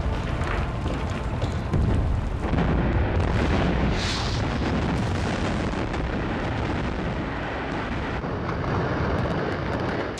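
A reinforced-concrete high-rise collapsing in an implosion: a continuous heavy rumble of breaking concrete and debris. It grows louder about two seconds in.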